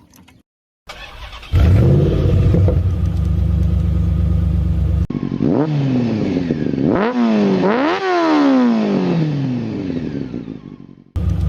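Vehicle engine running steadily, then revved: its pitch climbs sharply and falls back a few times before dying away, and the steady running cuts back in near the end. The engine is set up to sound like a Lamborghini.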